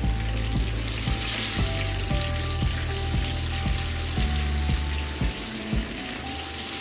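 Butter and oil sizzling and bubbling in a hot nonstick kadhai as the butter melts, stirred with a silicone spatula: a steady fizzing. Background music with a steady beat plays underneath and stops near the end.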